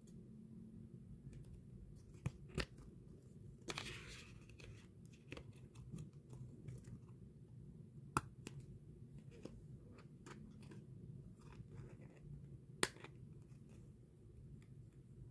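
Faint handling of printed cardstock as a paper stand-up piece is folded and slotted together: small rustles and scrapes, a short rustle about four seconds in, and a few sharp clicks of card snapping into place, the loudest two near the middle and near the end.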